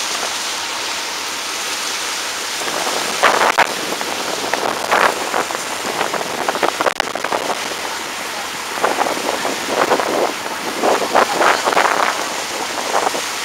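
Steady rushing noise of wind and water on a moving ferry's deck, with the wind gusting on the microphone several times, mostly in the second half.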